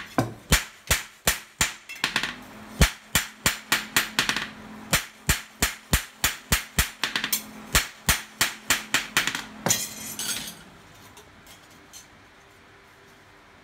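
Hand-forging a steel gyuto knife blade on a post anvil: two hammers strike the blade in turn, about three ringing metal blows a second. The hammering stops about ten and a half seconds in.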